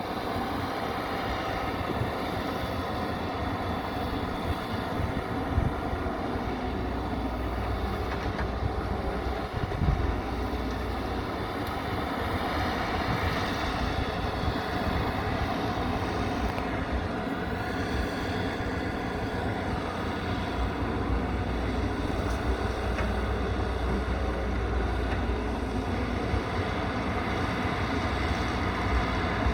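Excavator's diesel engine running steadily with a low rumble, and a couple of short knocks about five and ten seconds in.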